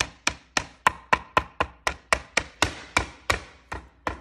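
Meat tenderizer mallet pounding M&Ms in a zip-top plastic bag on a plastic cutting board, a steady run of sharp blows at about four a second, crushing the candy shells.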